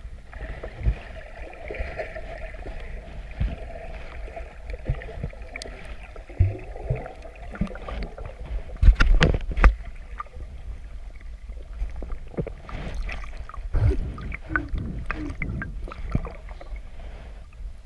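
Water splashing and sloshing around a small boat, with scattered knocks and thumps, loudest in a cluster about halfway through. Through the first half there is a steady high drone.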